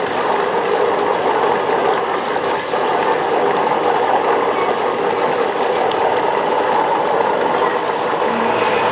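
Steady rushing noise of a pot of tripe cooking on a gas stove, its water boiling off.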